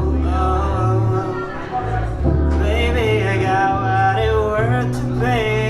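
Live song: a man singing long, wavering held notes over guitar accompaniment and a low bass line that changes note every second or so.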